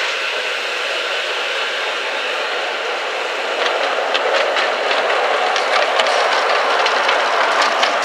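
Ride-on miniature railway locomotive and its train running past, with a steady running noise that grows louder as it comes close; from about three and a half seconds in, the wheels click rapidly over the rail joints.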